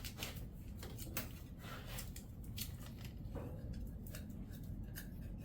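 Irregular light clicks and rustling of hands working with duct tape and small tools, over a low steady hum.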